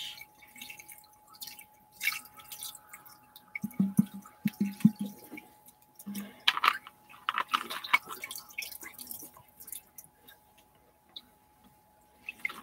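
Hands squishing and stirring wet Orbeez water beads in a plastic bowl, making irregular drips and wet clicks.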